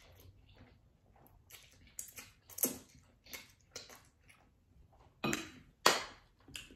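A person chewing instant noodles close to the microphone: a string of wet mouth clicks and smacks, with two louder ones near the end.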